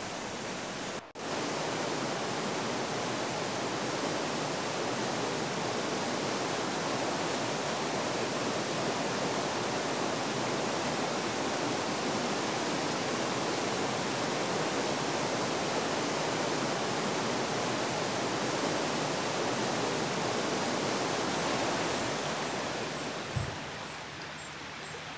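Shallow stream of water rippling over stones, a steady rush that breaks off for a moment about a second in and fades down near the end.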